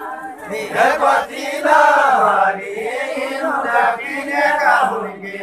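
Unaccompanied deuda folk singing: voices chanting a verse in a slow, drawn-out melody with long held notes.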